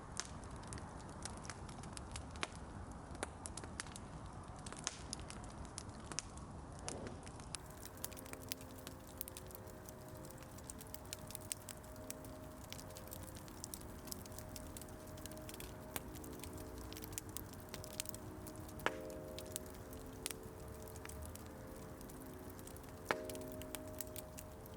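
Light clicks and taps with scattered footsteps, and from about a third of the way in a steady chord of several low held tones that shifts in a slow repeating pattern, like a sound installation's drone. Two sharper clicks come near the end.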